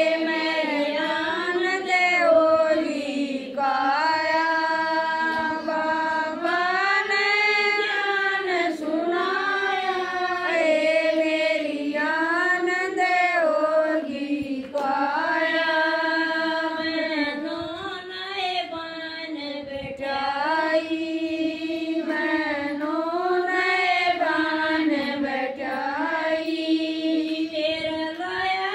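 A woman singing a Hindu devotional bhajan, her melody rising and falling in long held phrases.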